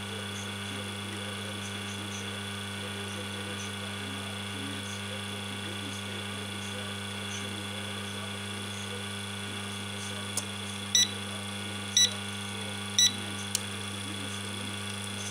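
Reverse-osmosis booster pump running with a steady electrical hum. Near the end the CB5 controller gives three short beeps about a second apart, with a few sharp clicks, as it reboots: the fault where the controller keeps restarting and sending the system into flushing.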